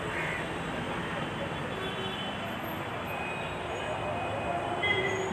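Busy street-market ambience: a steady din of indistinct chatter and background traffic, with a short, sharper sound just before the end.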